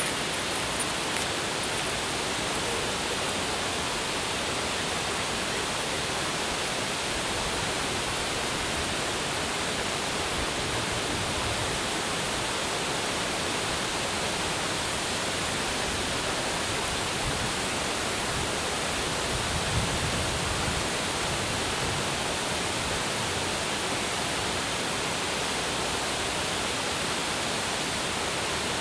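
Steady, even rush of water pouring over a wide dam spillway.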